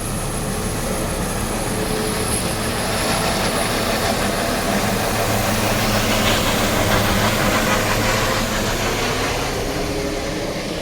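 Helicopter engine and rotors running, a steady loud rush that grows louder toward the middle and eases off near the end.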